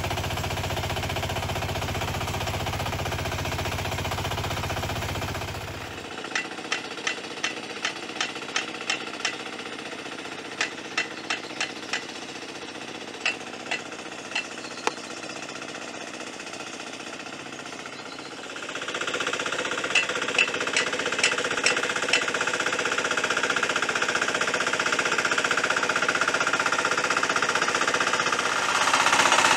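Two-wheel hand tractor's single-cylinder diesel engine running steadily under plowing load, heavy and close for the first few seconds, then fainter. A sharp clack repeats about twice a second through the middle, and the engine comes back louder from about two-thirds of the way in.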